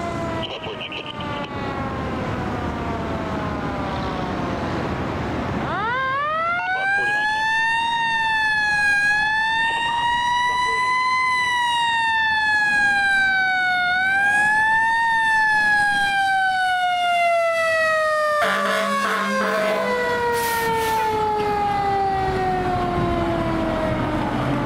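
Fire truck siren on a tiller ladder truck. Its pitch slides down at first, winds back up about six seconds in and wavers slowly up and down, then falls in one long, slow glide toward the end. Truck engine noise runs under it, and a short horn blast comes about three-quarters of the way through.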